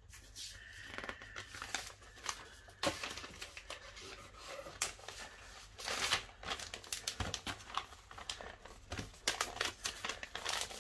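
Paper being handled and wrapped: irregular crinkling and rustling with many small taps and clicks.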